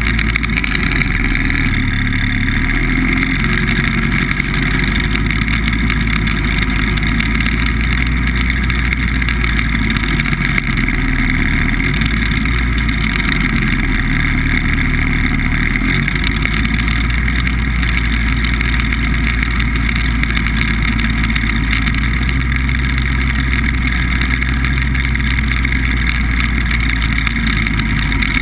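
BBV2+2 hovercraft's engine and propulsion fan running steadily under way, loud and close, with slight changes in pitch as the throttle varies.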